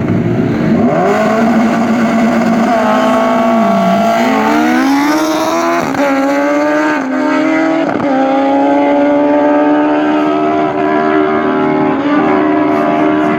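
Turbocharged Suzuki Hayabusa four-cylinder engine revving hard under acceleration. Its pitch dips about four seconds in, then climbs again with short breaks around six, seven and eight seconds, and holds high near the end.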